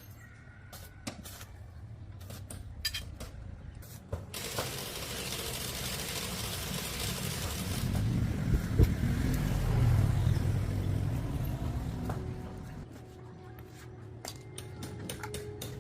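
A steady rushing noise starts suddenly about four seconds in, swells, and dies away about twelve seconds in. Scattered clicks and taps come before and after it.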